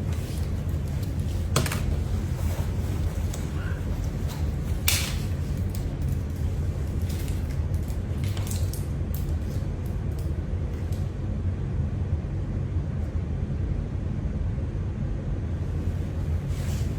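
A steady low hum with a few scattered clicks and taps over it; the sharpest click comes about five seconds in, and a small cluster follows a few seconds later.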